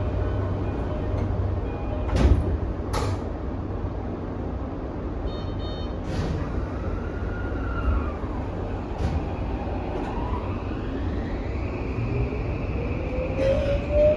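Inside a Toei 5500-series train car standing with a steady low hum, two sharp clunks about two seconds in and a short electronic tone a few seconds later, typical of doors closing before departure. In the last few seconds the Mitsubishi full-SiC VVVF inverter and its three-phase induction traction motors start up with a steadily rising whine as the train pulls away.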